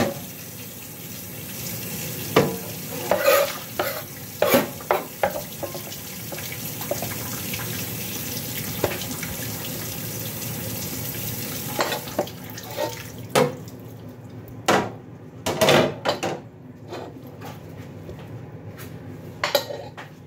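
Kitchen tap running steadily, stopping about two-thirds of the way through, with scattered knocks and clatters of utensils and dishes, several in quick succession near the end.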